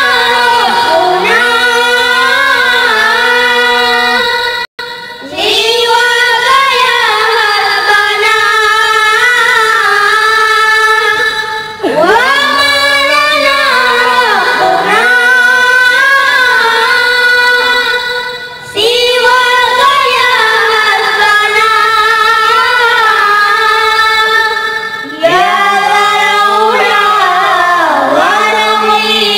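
Boys' high voices singing an unaccompanied Islamic devotional song into microphones, in long, ornamented melodic phrases with slides between notes, pausing briefly for breath about every six or seven seconds.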